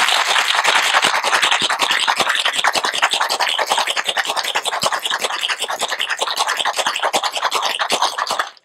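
Ice rattling hard inside a metal cocktail shaker tin, shaken fast in an even rhythm, chilling the drink; the shaking stops near the end.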